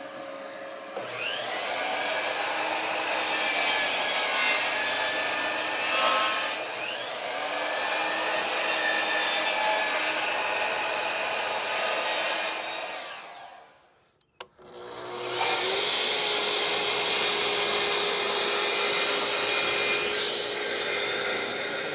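Electric saw cutting wood: the motor spins up and the blade runs through the board for about twelve seconds, then stops. After a short pause with a single click, the saw spins up again and makes a second long cut.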